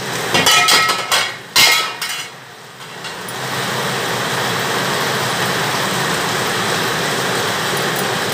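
An aluminium lid clanks several times with a metallic ring as it is set on the aluminium kadai. From about three seconds in there is a steady, even hiss from the covered pan, the chicken curry simmering under the lid.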